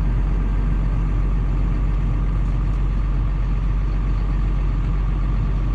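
Case IH combine running steadily while harvesting soybeans: an even, unbroken low drone with a faint steady whine above it.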